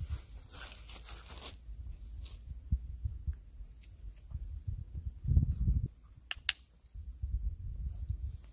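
A dog-training clicker clicked twice in quick succession about six seconds in, marking the puppy's behaviour for a food reward. Before it, a rustle at the start and a low thump a little after five seconds.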